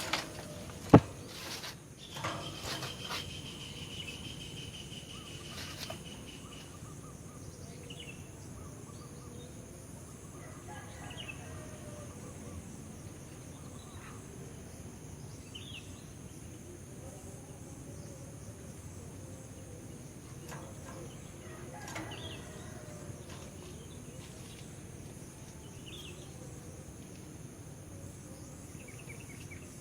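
Faint, scattered short bird chirps, a few seconds apart, over a steady background hiss, with one sharp click about a second in.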